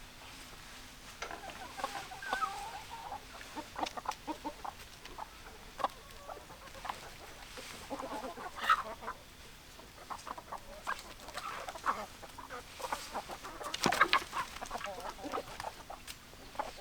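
Chickens clucking, many short calls overlapping, with a few louder squawks about nine seconds in and again near fourteen seconds.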